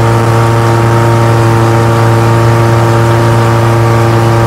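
Long-tail boat's engine running loud and steady at cruising speed, its pitch holding constant.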